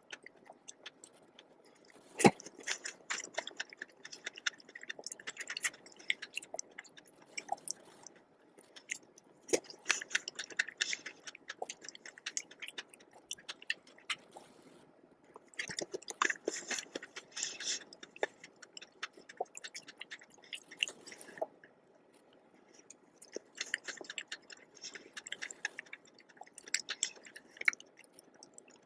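A person chewing a dessert of strawberries, whipped cream, marshmallows and chocolate biscuits close to the microphone, in bursts of clicky mouth sounds a few seconds long separated by short pauses. There is a sharp click about two seconds in.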